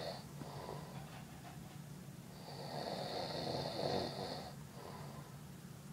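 A man snoring in his sleep: one long, loud snore from about two seconds in until about four and a half seconds in, with quieter breathing before and after it.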